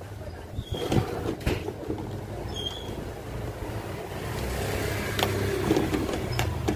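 Steady low background rumble with a few light clicks and taps.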